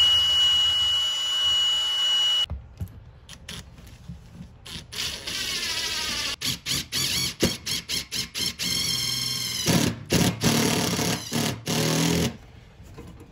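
An 18-volt cordless drill spins a socket with a steady high whine for about two and a half seconds, driving a self-tapping ground bolt into the SUV's steel floor pan. Then a Ridgid 18V cordless impact driver runs in many short trigger bursts, and near the end in a longer hammering run, to tighten the ground bolt down.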